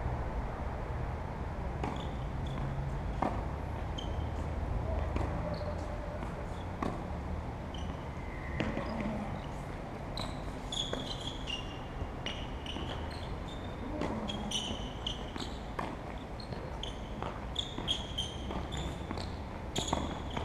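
Tennis ball being struck and bouncing on the court, sharp knocks a second or a few seconds apart over a steady low hum, with short high chirps from about halfway through.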